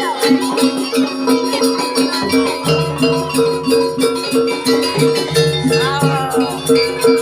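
Javanese jaranan campursari music: two gong-chime notes struck in a steady pulse over quick, even high ticking from small cymbals or rattles. A low bass note comes in about two and a half seconds in, breaks off briefly near five seconds and returns.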